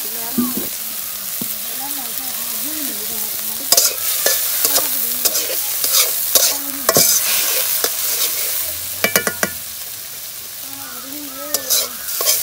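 Vegetables frying in a metal wok with a steady sizzle, stirred with a metal spatula. The spatula scrapes and knocks against the pan in a run from about four to seven seconds in, then again near nine seconds and near the end.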